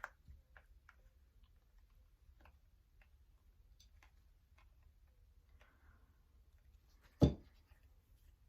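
Faint clicks and light taps of tarot cards being handled on a table, with one sharp thump about seven seconds in as a card or the deck is set down.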